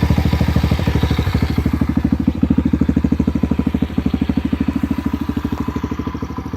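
Loncin 125cc single-cylinder four-stroke dirt bike engine idling through an aftermarket exhaust, a steady rhythmic pulsing idle.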